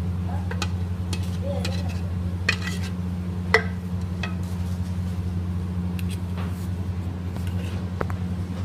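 Steel spoon stirring and spreading a thick milk mixture over fried bread in a steel tray, with scattered clinks and scrapes of metal on metal, the sharpest about three and a half seconds in. A steady low hum runs underneath.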